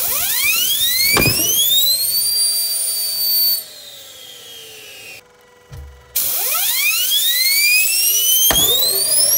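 Small home-built jet turbine engine spooling up: a loud, high whine rises steeply in pitch and then holds. About three and a half seconds in it drops away with falling pitch, and after a sudden break a second steeply rising whine starts the turbine spooling up again.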